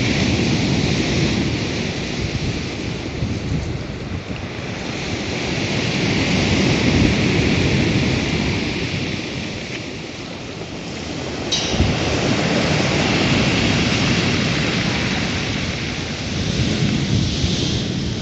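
Rough Black Sea surf: waves breaking and washing in, the noise swelling and easing every five or six seconds. A brief click comes about eleven seconds in.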